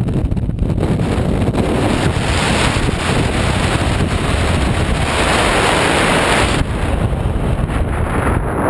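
Wind rushing over a GoPro camera's microphone in paraglider flight: loud, steady buffeting noise, with a stronger hiss from about two seconds in that eases about two-thirds of the way through.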